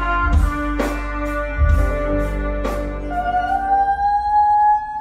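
Live jazz band playing, with drum hits and cymbal crashes under the chords. About three seconds in, a single long held note slowly bends upward over a thinner backing.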